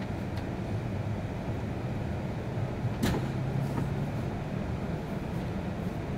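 Cabin noise of an E6 series Shinkansen moving off slowly from a station: a steady low rumble of the running train, with a single sharp knock about three seconds in, followed briefly by a low hum.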